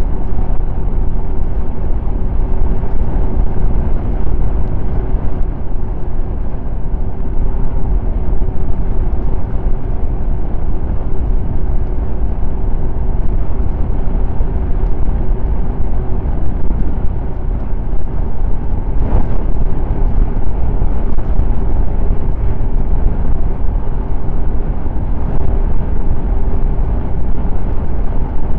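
Snowmobile running steadily at cruising speed: a loud, unbroken engine and track drone with a constant hum over a heavy low rumble. There is one short knock about nineteen seconds in.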